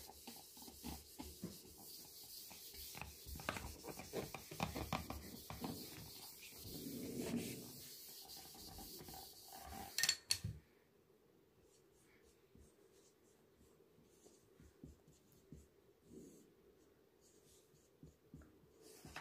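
Whiteboard duster rubbing back and forth across a whiteboard, erasing it, with a sharp knock about ten seconds in. Then it goes much quieter, with faint marker strokes on the board near the end.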